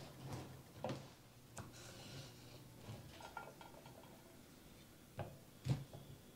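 Bread knife sawing through a crusty round loaf, faint cutting and rasping broken by a few small knocks, the loudest near the end.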